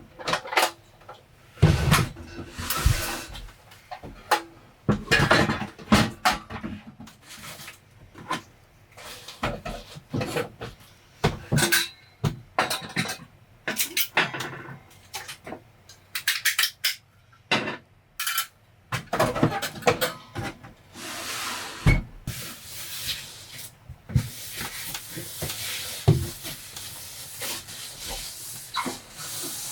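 Objects being handled at close range: irregular knocks, clinks and rubbing, with a stretch of hissing noise near the end.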